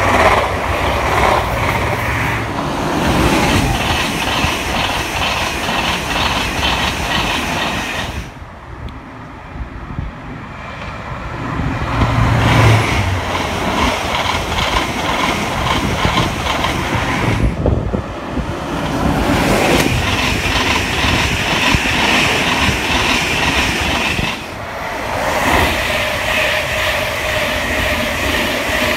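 Intercity passenger trains passing at speed: a loud steady rush of wheels on rail with a rapid clickety-clack, dropping away briefly a little over a quarter of the way in and for a moment again before the next pass.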